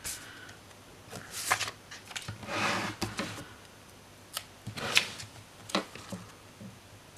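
Paper sticker sheet rustling as it is handled, and a sticker being placed and pressed onto a planner page: a few short papery swishes, one longer one about halfway through, with light taps.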